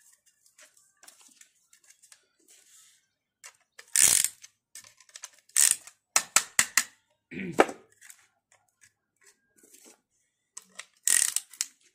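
Sharp metallic clicks and clacks of tools and engine parts being handled while a piston ring compressor is fitted round a new piston. A loud clack comes about four seconds in, then a quick run of four or five clicks, and another loud one near the end.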